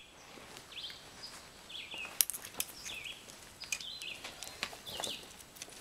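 Birds chirping: short, high calls repeating every second or so, with a few sharp clicks in between.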